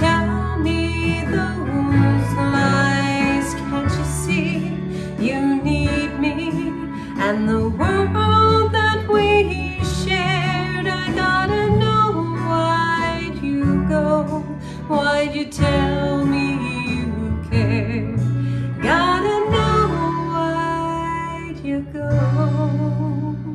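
A woman singing a country song with guitar accompaniment.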